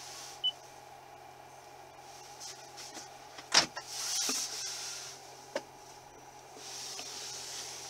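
Dashboard controls in a 2016 Toyota RAV4 cabin being operated: a short electronic beep, then a sharp click about three and a half seconds in, some rustling, and another click near six seconds. A steady low cabin hum runs underneath.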